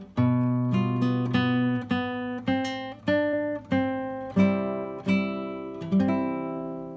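Solo classical guitar playing a slow melody in plucked notes and chords, closing with a final chord about six seconds in that is left to ring and fade.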